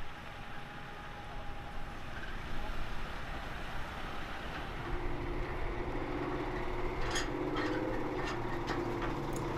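Heavy diesel truck running as it hauls a tracked armoured vehicle on a low-loader trailer. About halfway through a steady engine hum comes in, with several sharp metallic knocks near the end.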